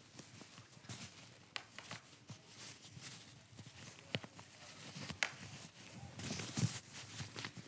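Rustling and scratching of a blouse rubbing against a clip-on lapel microphone as the wearer tugs the collar and works its buttons, with scattered small clicks and a denser patch of rustle near the end.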